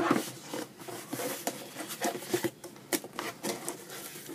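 Irregular light clicks, knocks and rustling of kitchenware and its packaging being handled, with several sharp taps spread through the stretch.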